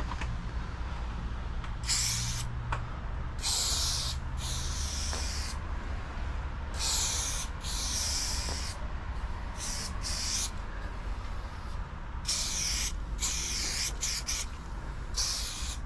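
Aerosol spray-paint can spraying in about a dozen short hisses, each under a second, as outline strokes are painted, over a steady low rumble.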